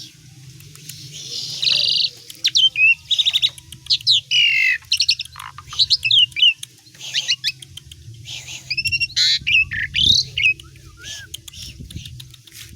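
Asian pied starling (jalak suren) singing a rapid, varied run of whistles, pitch-gliding notes and harsh squawks, with mimicked calls of other songbirds worked in. The song starts about a second and a half in.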